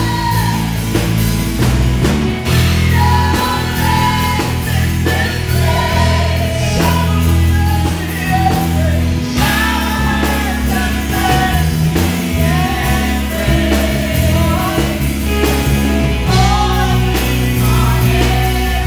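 Live worship music: a woman sings lead through a microphone, with other voices joining, over a band's steady, sustained low accompaniment, loud and amplified in a church hall.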